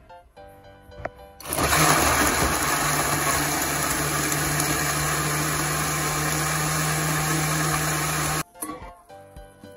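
Countertop blender switching on about a second and a half in and running steadily at full speed as it purées chunks of fruit, then cutting off suddenly about a second before the end.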